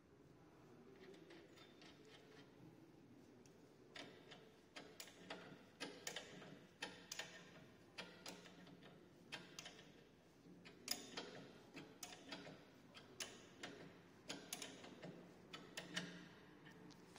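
Faint, irregular metal clicks, about one or two a second, as a pedal is screwed onto an exercise bike's crank arm by hand and tightened with a small spanner.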